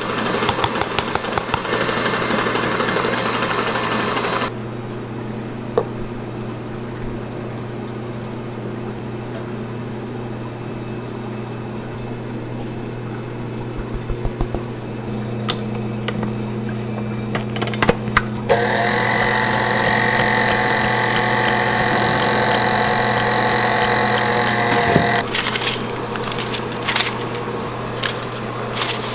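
A steel mesh sieve being shaken over a steel bowl, a fast rattle as cocoa powder and flour are sifted, for the first few seconds; then a quieter stretch with a low hum and a few light knocks. About two-thirds of the way in an electric mixer's motor starts, a steady whine that rises briefly as it spins up and stops a few seconds later, followed by parchment paper rustling and crinkling.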